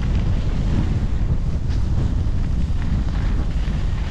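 Wind buffeting the microphone of a skier moving down the slope: a steady, loud low rumble with a rushing hiss over it.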